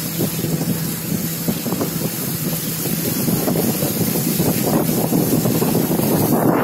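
River longboat's outboard motor running steadily under way, with wind buffeting the microphone. Near the end the engine hum stops abruptly and the sound turns to louder wind noise.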